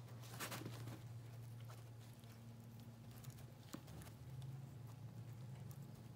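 Faint snips and clicks of small dissecting scissors cutting through the tough tissue of a cow's eyeball, over a steady low hum.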